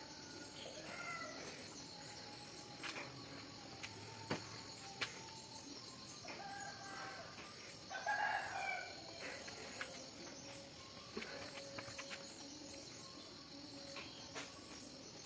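A rooster crowing, loudest a little past halfway, with weaker calls earlier, over a steady high-pitched drone and a few sharp clicks.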